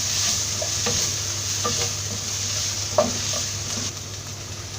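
Sautéed onions with freshly added turmeric and garam masala sizzling in a little oil in a pan while a spoon stirs them, knocking against the pan about three times. The spices are being fried until their raw smell goes.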